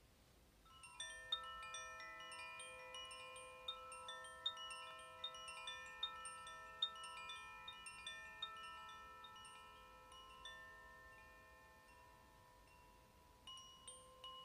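Koshi chime, a bamboo-bodied wind chime with tuned metal rods, being rung: the clapper strikes the rods in an irregular shower of bright notes that ring on and overlap. The strikes start about a second in, slowly thin out and die away, and pick up again near the end.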